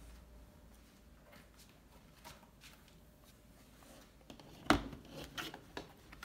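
Quiet handling noise, then a single sharp knock about three-quarters of the way in as the HP laptop's base is set down on the table, followed by a few soft clicks and rubs.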